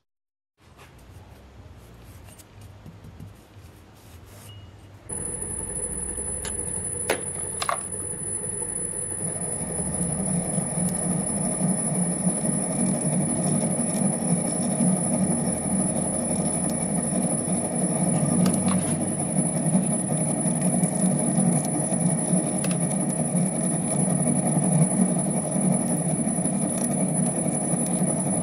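Homemade metal lathe running with a steady high whine and a low hum, its turning tool cutting a spinning metal bar. The cutting noise comes in about ten seconds in, with a few sharp clicks shortly before.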